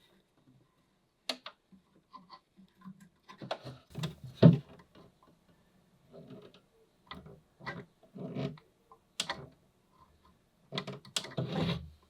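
Irregular light taps, clicks and rustles of small pieces of eucalyptus wood being handled and pressed into place, with a louder knock about four and a half seconds in.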